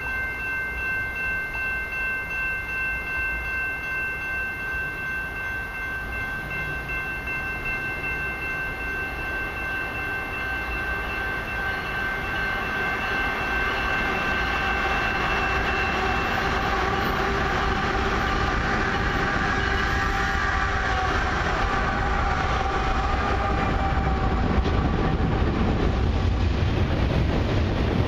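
A steady, gently pulsing warning tone of several pitches sounds for about the first half as a freight train approaches. It fades out while the rumble of the CN diesel locomotives and the wheels on the rails grows louder, until loaded tank cars are rolling past near the end.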